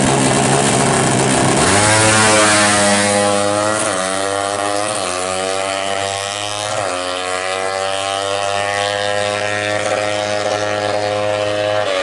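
Yamaha Jupiter Z's single-cylinder four-stroke engine, bored up to 200cc, revving at the start line, then launching and accelerating hard. Its pitch climbs, drops at gear changes about four, five and seven seconds in, and climbs again to a high steady note.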